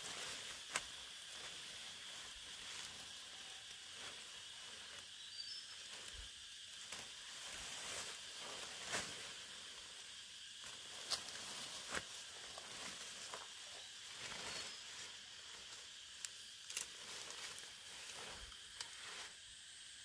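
Leafy vines being cut with a machete and pulled up by hand: scattered rustling and sharp snaps of stems, over a steady high buzz of insects.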